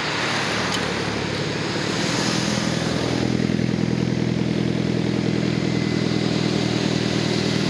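Cars rolling slowly past at close range. A Mitsubishi Lancer Evolution goes by at the start with a rush of engine and tyre noise. From about three seconds in, a black sport coupe's engine runs steadily at low revs and grows a little louder as it passes.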